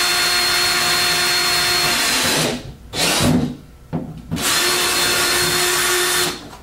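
Cordless drill with a 7/16-inch bit boring a hole through a black plastic TV enclosure. The motor whines steadily for about two seconds, then winds down, with a short burst and a click. It runs again for about two seconds and stops near the end.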